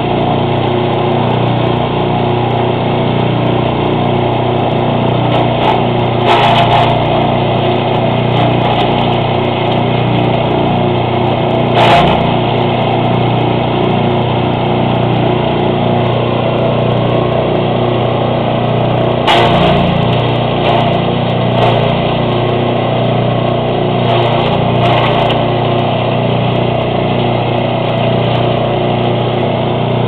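BearCat wood chipper's engine running steadily, with a few short louder bursts as cedar branches are fed in and chipped, the loudest about twelve seconds in.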